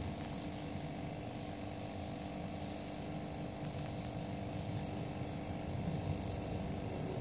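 Outdoor insect chorus: a steady, high-pitched trill that goes on without a break, over a low rumble and a faint steady hum.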